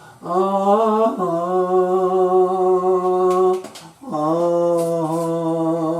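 A solo voice singing long wordless notes with no accompaniment: one held note that steps to a lower pitch about a second in, a short break for breath, then a second long held note.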